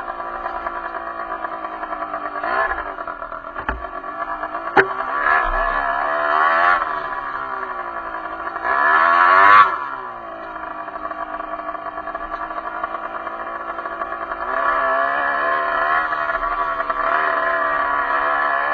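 Derbi enduro motorcycle engine running and revving up several times, its pitch climbing and falling back, the biggest rev cut off sharply about ten seconds in. Two sharp knocks come around four and five seconds in.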